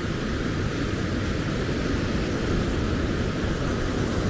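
Heavy ocean surf breaking and washing up the beach, a steady rushing noise, with wind rumbling on the microphone.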